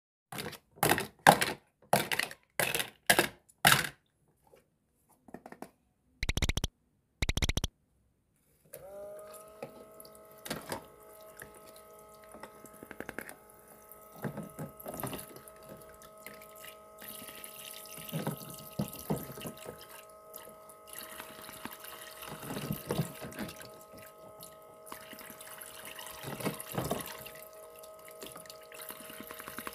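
A quick run of about eight loud knocks, then two short noises. From about nine seconds in, the small motor of a toy kitchen sink's water pump starts and runs steadily, with water trickling and occasional plastic clicks.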